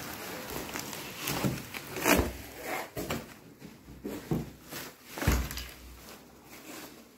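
Bubble wrap and plastic packaging rustling and crinkling as they are handled and pulled off a boxed car stereo, with two louder bumps about two and five seconds in.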